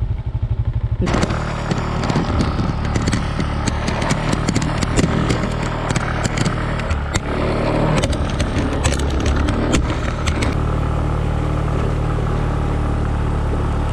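Motorbike engine pulsing evenly for about a second, then running steadily under load as it climbs a steep loose-gravel road. Stones click and clatter under the tyres through most of the climb.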